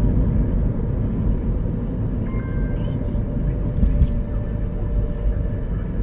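Steady low rumble of a car moving along a road, heard from inside the cabin: tyre and engine noise.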